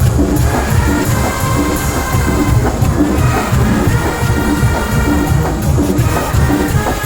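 Several brass bands playing together in a Oaxacan banda arrangement: massed brass over a bass line and percussion keeping a steady beat of about two a second.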